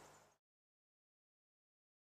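Near silence: faint background ambience fades out within the first half second, then complete digital silence.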